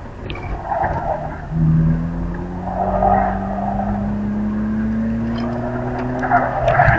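BMW E46 325xi's 2.5-litre straight-six pulling under load, heard from inside the cabin, its pitch climbing slowly as the car gathers speed. Bursts of tyre noise come and go as the car works through the cones.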